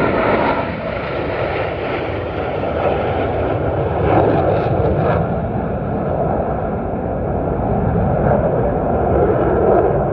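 Loud jet roar of the Blue Angels' F/A-18 Super Hornets on a low formation pass, swelling at the start and holding steady as the jets break formation.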